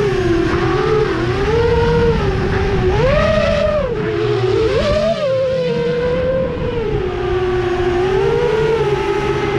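FPV quadcopter's brushless motors and propellers whining, the pitch rising and falling with the throttle, with a sharp climb about three seconds in and another around five seconds.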